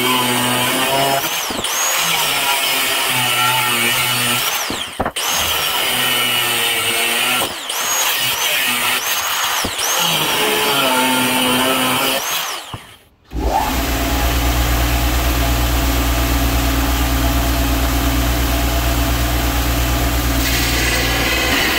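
Handheld angle grinder cutting a steel flat-bar bracket, its pitch dipping and recovering as the disc bites, then spinning down about two thirds of the way through. A belt grinder then runs with a steady hum, and steel is pressed against the belt near the end.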